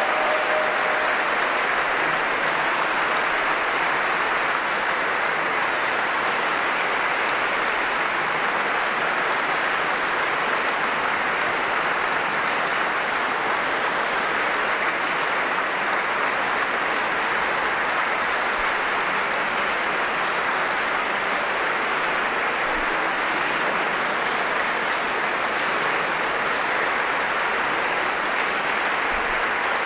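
Audience applauding steadily at the end of a concert performance.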